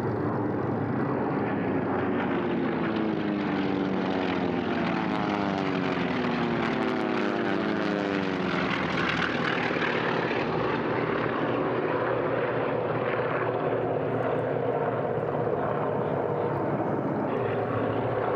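Piston-engined propeller airplane flying past, its engine note dropping in pitch as it goes by about halfway through, over steady engine noise.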